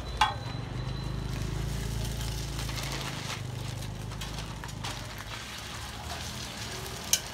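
Cooking at a street-stall iron tawa: a steady low rumble, with one sharp clink of a metal utensil just after the start and a few more clinks near the end as the egg-coated paratha is turned.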